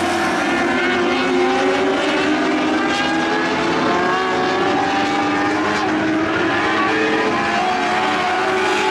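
Several winged lightning sprint cars racing together on a dirt oval, their engines running hard at high revs. The overlapping engine pitches glide up and down as the cars lift and accelerate through the turns.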